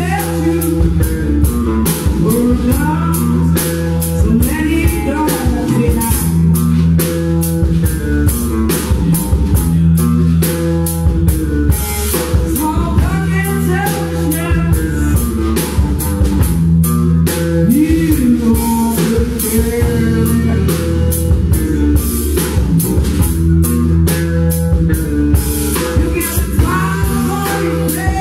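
Live blues-rock band playing: drum kit keeping a steady beat under electric guitar, loud and continuous.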